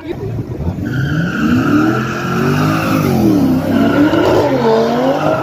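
Race cars accelerating hard down the drag strip. The engine note climbs, drops at a gear change about three seconds in and again near the end, and a steady high whine runs over it.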